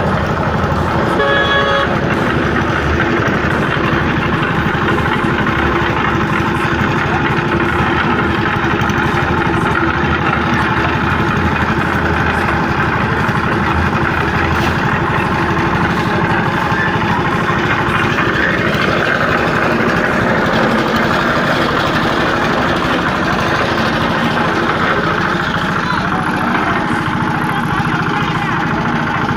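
A machine's engine running steadily, with a short horn toot about one and a half seconds in.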